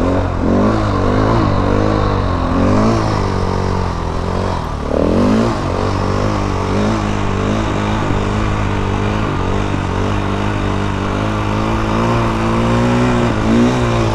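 Stunt motorcycle engine revving in quick throttle blips, then held at fairly steady revs for several seconds while the rider rides a wheelie combo.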